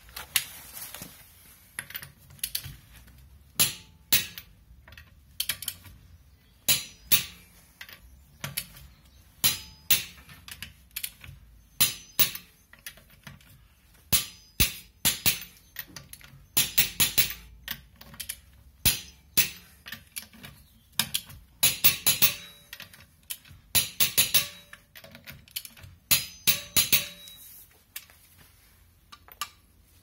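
Sharp metal clicks and knocks of a hand tool working the lug nuts of an alloy wheel, in irregular clusters of two to six strikes with short pauses between.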